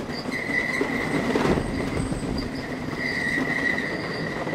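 Tonnerre de Zeus wooden roller coaster train running along its wooden track, its wheels squealing in a high, steady tone over a low rattling rumble. The squeal is loudest about half a second in and again around three seconds in.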